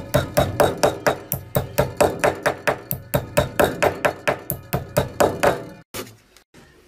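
Small hammer tapping dome-headed studs into the rim of a large wooden drum to fix the drumhead. The taps come quick and even, about five a second, and stop about five and a half seconds in.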